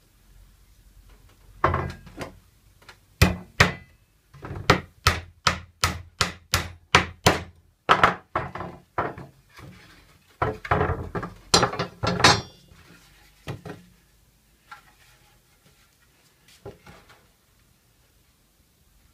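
Hammer blows on pallet-wood slats, most likely nailing the joint of a bench frame: a run of sharp strikes, up to about three a second, that stops after about twelve seconds. A few scattered knocks follow.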